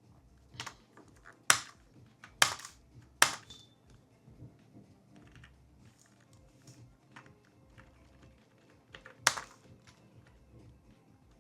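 Separate key presses on a computer keyboard: four sharp keystrokes in the first few seconds, then one more near the end, with a few fainter taps between.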